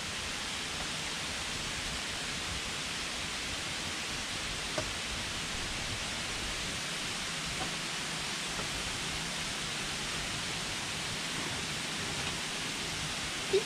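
Steady rush of a waterfall, an even hiss of falling water.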